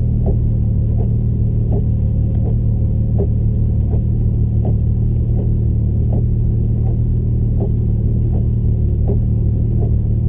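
Porsche engine idling with a steady low drone and a short regular puff about every 0.7 s, an uneven beat that points to a cylinder misfiring.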